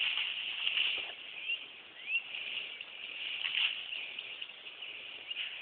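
Outdoor field ambience: a steady high hiss with soft swishing steps through tall hay grass, and two short rising bird chirps about a second and a half and two seconds in.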